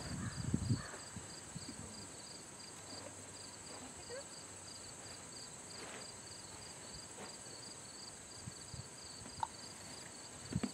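Steady insect chorus outdoors: a continuous high buzz with a regularly pulsing chirp running under it. A few low thumps at the very start.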